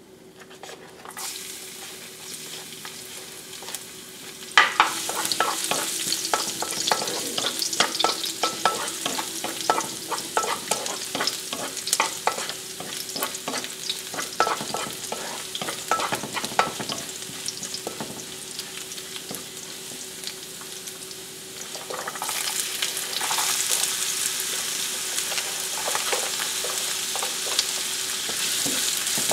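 Minced garlic sizzling in hot oil in a nonstick wok, stirred with a wooden spatula that scrapes and taps against the pan. About 22 seconds in the sizzle grows louder as chopped onion joins the garlic.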